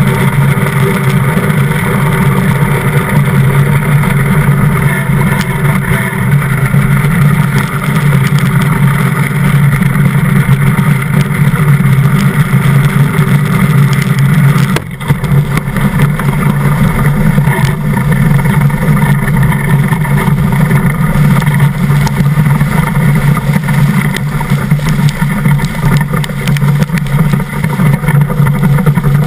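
Steel runners of a DN iceboat rumbling over hard ice at high speed, mixed with strong wind on the microphone. It is one loud, steady roar with a brief sudden dip about halfway through.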